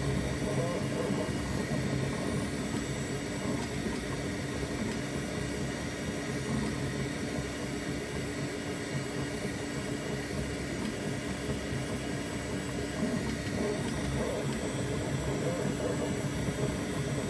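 Bambu Lab 3D printer running a print: a steady whir of cooling fans and motors as the toolhead moves over the build plate.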